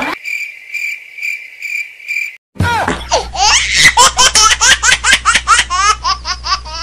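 Cricket-chirp sound effect for about two seconds, then, after a short break, a long run of loud, high-pitched laughter in quick pulses, about three a second.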